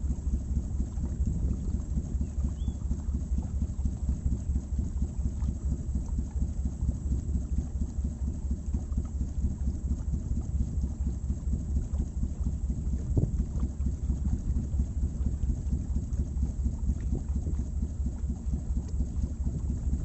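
Wind buffeting the microphone aboard a moving boat: a steady, fluttering low rumble.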